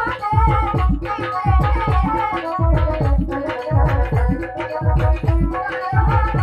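South Asian dance music with a steady beat of hand drums and a melody line above it, played loud for a stage dance.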